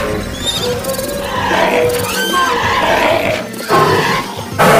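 Background music with animal roars and cries mixed over it; the loudest roars come near the end.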